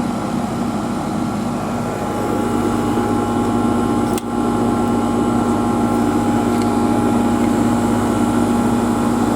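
Goodman heat pump outdoor unit running with a steady hum and a whine. It grows slightly louder about two seconds in and dips briefly about four seconds in, then holds steady.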